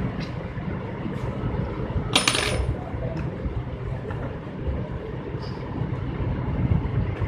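A small metal object clinks onto a hard surface about two seconds in: a brief clatter with a high ringing tone, over a steady low background rumble.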